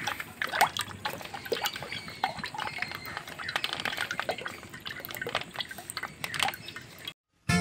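Cooking oil pouring in a thin stream from a plastic pouch into an iron kadai, trickling and splashing with many irregular small drips. It cuts off suddenly just before the end.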